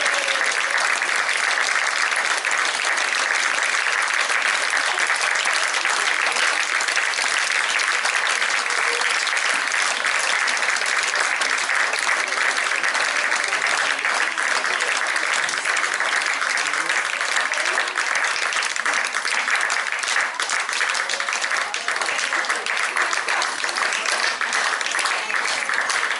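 Audience applauding steadily, many hands clapping at once in a dense, even wash of claps.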